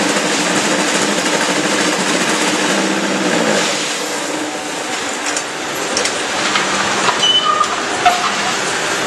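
Automatic concrete block making machine running: a steady machine hum that drops in pitch and fades about three and a half seconds in, then a rattle of metal knocks and clanks with a few brief squeaks near the end.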